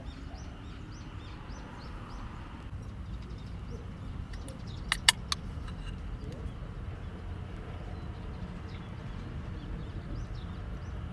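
A can of coffee's pull tab cracking open about five seconds in: two sharp clicks in quick succession. In the first few seconds a bird chirps rapidly and repeatedly over a steady outdoor background.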